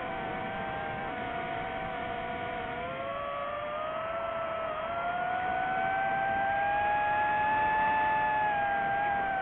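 DJI FPV drone's motors and propellers whining in flight, several pitches moving together, rising about halfway through and easing down near the end as the throttle changes.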